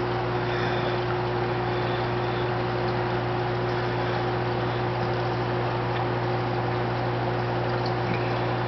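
Reef aquarium's water pump and filter running steadily: a constant hum under an even hiss of moving water.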